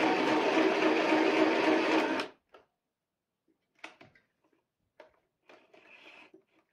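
Compact electric mini sewing machine (FHSM-505B) stitching at a steady speed, then stopping abruptly about two seconds in. A few faint clicks and rustles of fabric being handled follow.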